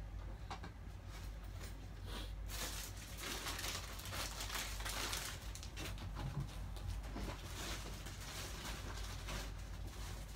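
Rustling and crinkling of bags, cloth and a cardboard box being handled and packed, with scattered light knocks. The rustling is busiest in the middle, over a steady low hum.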